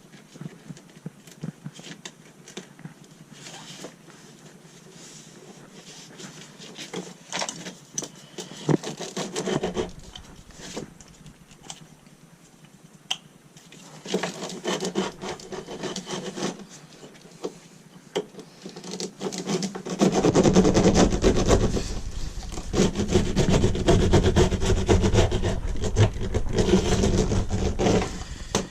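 Rubbing and scraping as a piece of bitumen sound-deadening mat is handled and fitted onto a floor: scattered light clicks and rustles at first, turning into steady, louder rubbing for roughly the last eight seconds.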